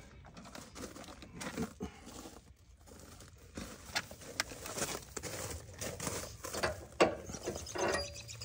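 Scattered metal clicks and clanks from Equal-i-zer weight-distribution hitch hardware being handled as its pins and latches are worked loose. The sharpest click comes about seven seconds in.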